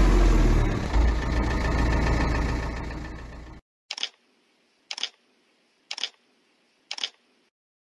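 An engine rumble that fades out over the first three and a half seconds, then four camera-shutter clicks about a second apart.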